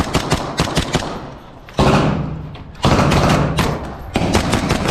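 Military rifles firing blank rounds in quick succession. A fast run of shots comes first, then two louder close shots with a lingering echo about two and three seconds in, then more shots near the end.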